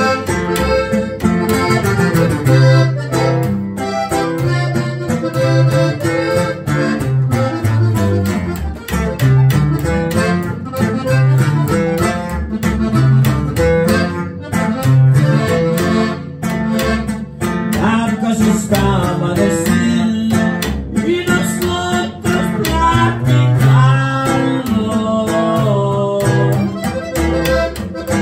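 Live band music: an accordion playing the melody over a strummed acoustic guitar and a plucked upright bass, in a steady rhythm.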